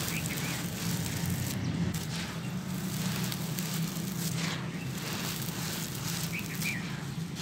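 Dry sand-cement powder crumbling and sifting through hands: a soft, gritty hiss with fine crackling that swells with each handful poured.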